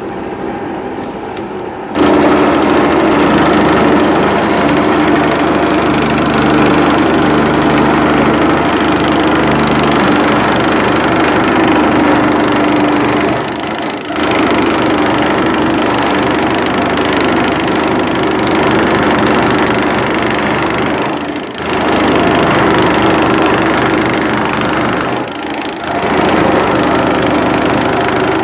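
Motor-driven grass chopper running steadily, a loud, even machine hum with a sharp whirr on top. It comes in abruptly about two seconds in and dips briefly three times.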